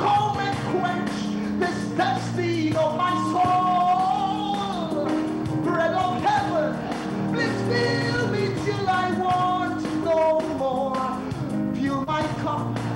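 Live gospel worship chorus: a man sings lead into a microphone over a band with a steady drum beat.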